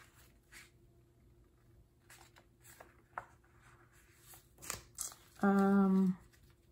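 Sticker sheets and paper being handled on a table: light rustles and soft taps, with one sharper tap a little before the end. A short hummed 'mm' from a voice comes about two-thirds of the way through.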